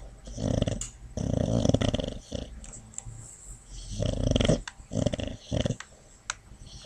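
Boxer dog snoring in her sleep: four snore breaths in two pairs, with a pause between the pairs.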